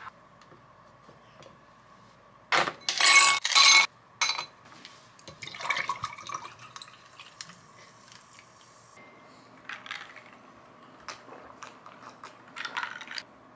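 Sparkling water poured from a plastic bottle into a glass of ice and an effervescent vitamin, fizzing and trickling, with a faint hiss that cuts off suddenly about nine seconds in. About three seconds in there is a loud burst of clattering noise, and a few light clinks and taps come near the end.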